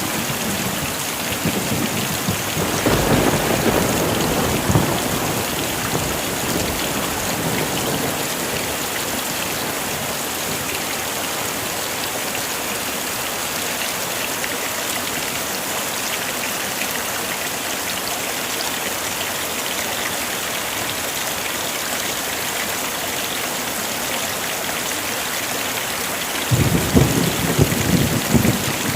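Heavy rain falling steadily, with low rolls of thunder about three seconds in and again near the end.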